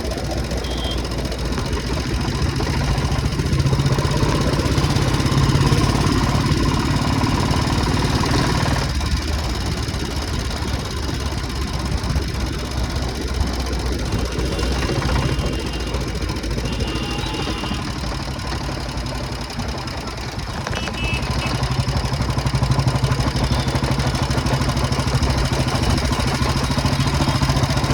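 Royal Enfield motorcycle engine running, its level rising and falling, dipping about a third of the way in and again past the middle. The owner flags the noise as a problem with the bike.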